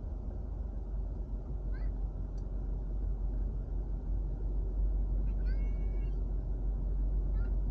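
Steady low engine and road rumble inside a Toyota GR86 on the move, with a few short high-pitched squeaks over it, the longest about five and a half seconds in.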